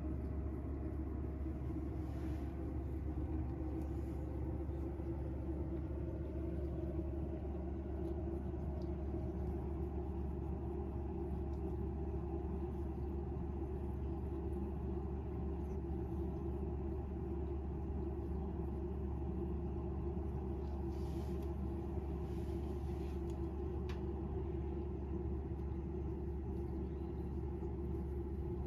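Steady low background hum, unchanging throughout, with a few faint soft ticks.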